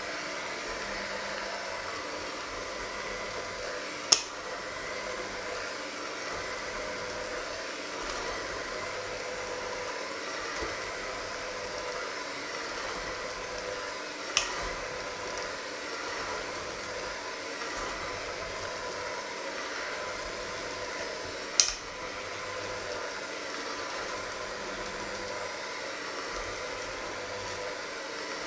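Electric hand mixer running steadily, its beaters working through a thick creamy mixture in a stainless steel bowl with an even motor hum. Three sharp clacks, about four, fourteen and twenty-two seconds in, as the beaters knock against the steel bowl.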